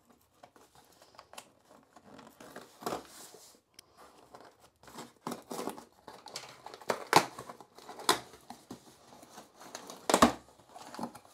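Scissors cutting open a shipping package, with the packaging crinkling and tearing in irregular snips and rustles; a few sharp clicks stand out about seven, eight and ten seconds in.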